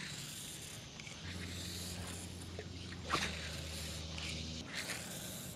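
Baitcasting reel being cranked to retrieve a Texas-rigged soft plastic worm: a faint steady low whir that starts about a second in and stops near the end, with a sharp tick about three seconds in.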